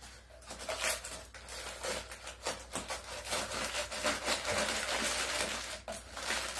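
Packing material being crinkled and pulled by hand off a wooden wall clock case: a run of irregular crackles and rustles.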